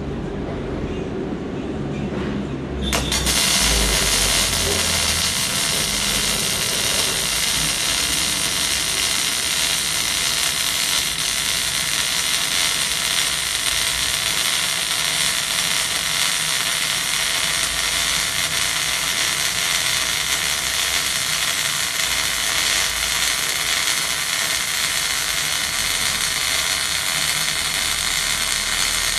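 MIG welding arc struck about three seconds in, then burning steadily with a continuous crackling hiss as the wire feeds into the weld.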